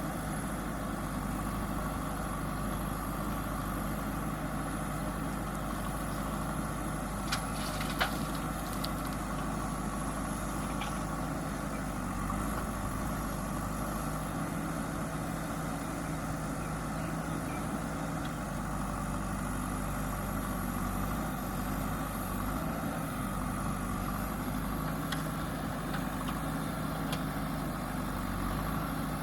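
Diesel engine of a JCB backhoe loader running steadily, with a couple of sharp knocks about seven and eight seconds in.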